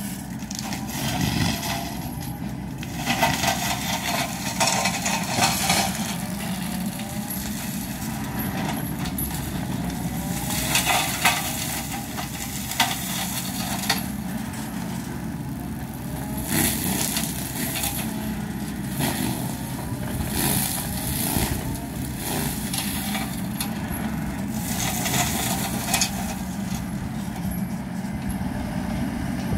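Wacker Neuson ET65 mini excavator running steadily while its boom-mounted forestry mulcher spins and shreds shrubs and brush in a ditch. The grinding grows louder every few seconds as the mulcher head bites into the growth.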